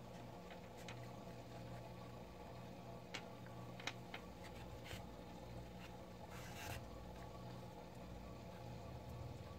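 Faint handling of a crocheted amigurumi head as a needle and yarn are worked through it: a few light clicks about a third of the way in and a brief rustle of yarn being drawn through about two-thirds in, over a steady low electrical hum.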